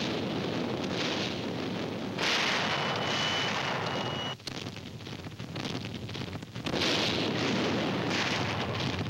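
Old film sound-effects track of a naval bombardment: a continuous rumble of heavy gunfire and explosions. It grows louder a little after 2 s, drops abruptly about halfway through, and swells again near the end.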